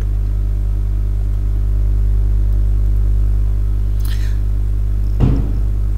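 Steady low electrical hum in the recording, with no speech. A brief faint hiss comes about four seconds in, and a short low thump just after five seconds.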